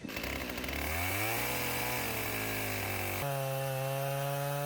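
Husqvarna chainsaw mounted in an Alaskan chainsaw mill, its two-stroke engine revving up about a second in and running steadily at speed. Its pitch steps higher a little past three seconds in.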